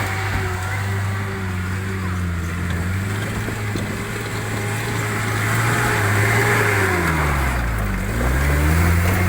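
Off-road 4x4's engine running under load, its pitch dropping sharply about eight seconds in and then climbing again, over a steady hiss.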